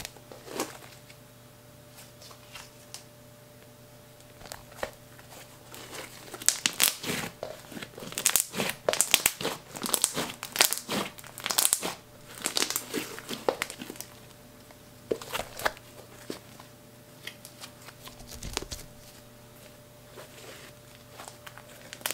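Hands kneading, stretching and folding a fluffy slime with eyeshadow mixed in, giving sticky crackles and clicks. The crackling is sparse at first, thickest for several seconds in the middle, then thins out again.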